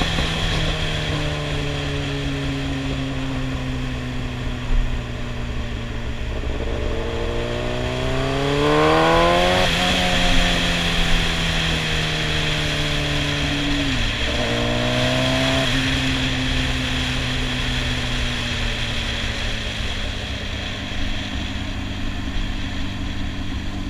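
Sportbike engine on a downhill run, mostly on a closed throttle with its pitch slowly sinking. It is opened up twice, for a rising rev about eight seconds in and a shorter one about fifteen seconds in, and each cuts off sharply. Wind rushes steadily over the camera throughout.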